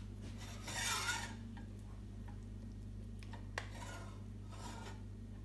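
A metal spoon scrapes and clinks against a stainless steel pot while chickpea curry is scooped out. There is a scrape about a second in, then fainter scrapes with one sharp clink past the middle, over a steady low hum.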